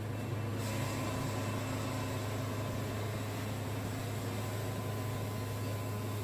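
Band sawmill running steadily: its engine hums under a steady hiss as the band blade works through a cedar log, with the hiss brightening slightly about half a second in. The sawyer suspects the blade is dull and not cutting well.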